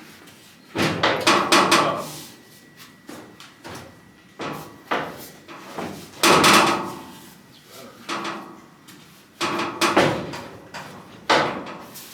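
Steel fender of a 1958 Chevy pickup banging and clanking as it is knocked and bent into place against the body: a run of irregular metal bangs, some in quick clusters, several with a short ring.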